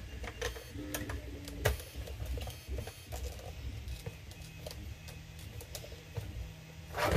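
Small precision screwdriver tightening a screw into a plastic blaster pump grip: faint scattered clicks and ticks of the driver and screw against the plastic, with a brief squeak about a second in.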